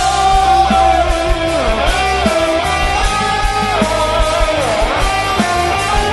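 Rock band playing live: electric guitars, bass and drums, with a held lead melody that slides up and down between notes over a steady beat.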